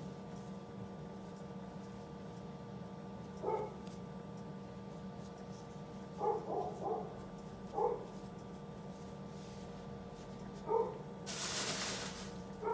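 A dog barking in short single barks and a quick run of three, about seven in all, over a steady low hum. Shortly before the end a brief rustle of about a second.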